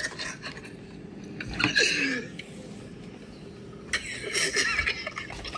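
Two people laughing hard in breathy, wheezing bursts, one about one and a half seconds in and another around four seconds in.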